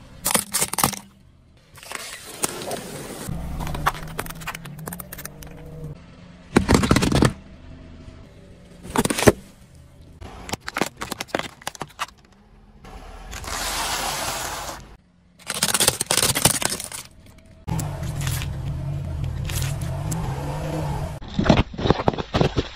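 A car tyre rolling slowly over objects on asphalt and crushing them: a series of separate crunches, cracks and bursts, with the car's engine running low beneath some of them. Near the end, drink cartons burst under the tyre and spray out their juice.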